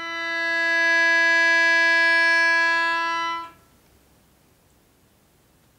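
A melodica, blown through its flexible mouthpiece tube, sounding one long held note that swells in volume over the first second and then stops cleanly about three and a half seconds in.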